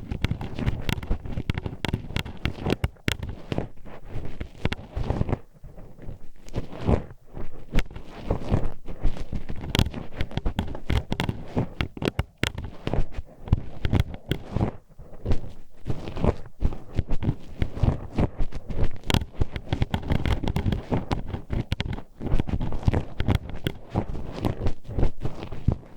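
Metal hairpin poked and scraped inside the ear of a binaural microphone: a dense, irregular run of sharp clacks and clicks over a close, rumbling scratch.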